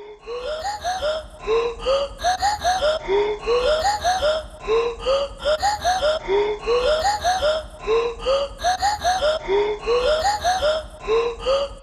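End-screen background music loop: a short phrase of rising, voice-like pitched sounds repeated over and over every second or two.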